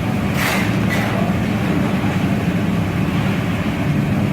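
A steady low mechanical hum, with a couple of faint clicks in the first second.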